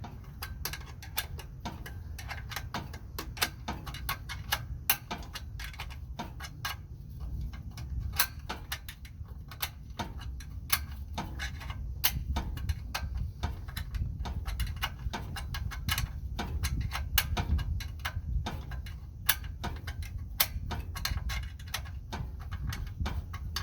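A ratchet clicking in quick, irregular runs as the screws holding the snowblower's recoil starter are tightened, over a low rumble.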